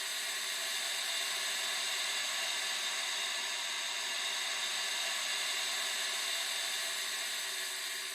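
Howling wind sound effect: a steady hissing rush of wind with faint, steady whistling tones running through it. It eases off slightly near the end.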